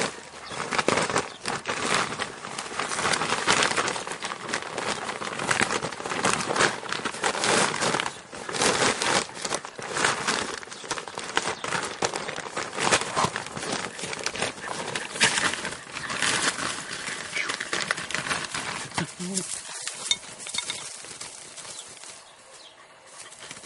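Plastic sheeting crinkling and rustling as an animal noses and tugs at it, dying down over the last few seconds.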